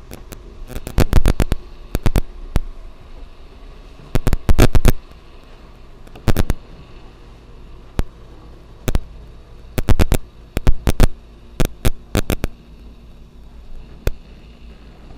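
Handling noise on a handheld camera's microphone: clusters of sharp crackling clicks, several close together, recurring every second or two over a steady low hum.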